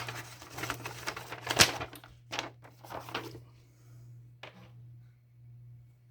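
Small items and their packaging being handled: a run of clicks and rustles for about three and a half seconds, one more click about a second later, then only a faint low steady hum.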